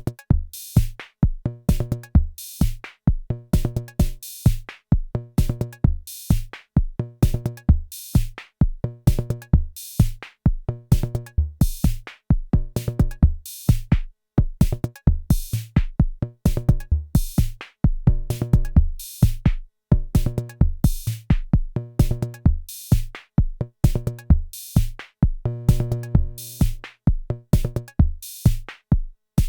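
Arturia DrumBrute Impact analog drum machine playing a looping beat of kick drum, a pitched low drum and bright hi-hat and snare hits. The pattern repeats about every two seconds.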